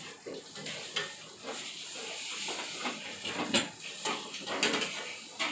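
Metal spatula scraping and knocking in a frying pan as a pizza is worked loose and slid out, over a light steady hiss.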